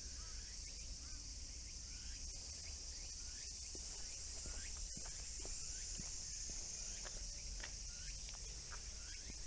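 Steady high-pitched insect chorus, with scattered short chirps and a low background rumble.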